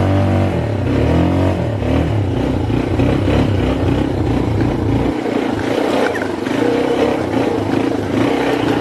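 ATV engine revving up and down, with its low engine note dropping away about halfway through.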